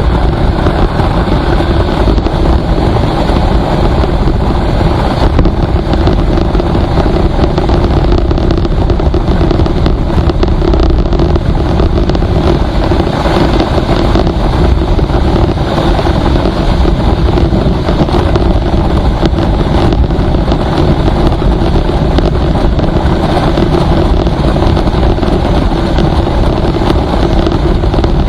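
A road vehicle travelling at steady speed on a highway: a constant drone with a rushing noise over it and no change in pace.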